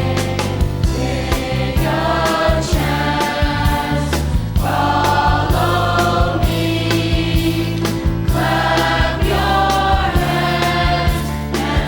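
Upbeat gospel song: voices singing together in phrases over a steady drum beat.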